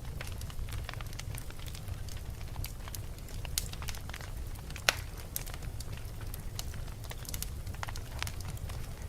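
Wood fire in a fireplace crackling, with frequent irregular pops and snaps over a steady low rumble of the flames; one sharper pop stands out about five seconds in.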